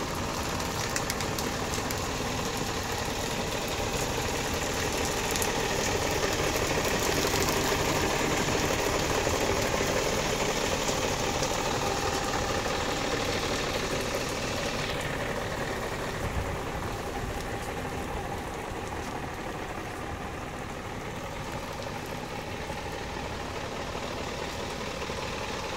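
Isuzu ELF truck's diesel engine idling steadily, with a steady hiss over it that drops away about fifteen seconds in.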